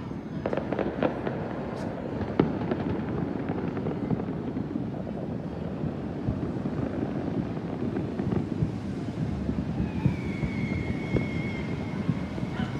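Many fireworks and firecrackers going off at once across the city, a continuous crackle of pops and bangs with a few louder reports. A steady whistling tone joins in near the end for a couple of seconds.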